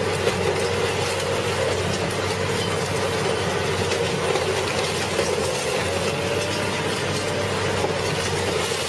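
Red Giant VB 950 DK mobile shredder running steadily under load as it tears into a car body, a constant machine drone with a few scattered knocks of metal.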